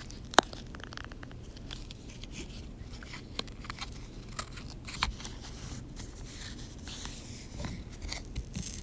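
Quiet room tone with scattered small clicks and rustles of a phone being handled. One sharp click comes about half a second in, and a few fainter ones follow every second or two.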